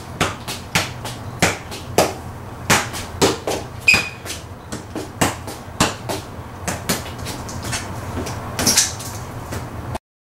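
Soccer ball juggled with the feet: a quick, uneven run of ball strikes and touches, two or three a second, with a brief high squeak about four seconds in. All sound cuts off suddenly near the end.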